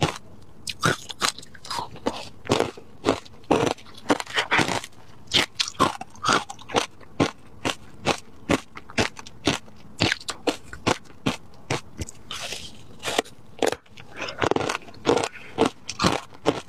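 Frozen matcha ice topped with passion fruit pulp being bitten and chewed close to the microphone: a quick run of sharp icy crunches, about two or three a second, with softer chewing between.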